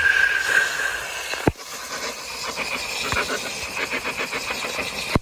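High-pressure water jet hissing steadily as it blasts against a yellowtail snapper, stripping off its scales, with one sharp knock about a second and a half in.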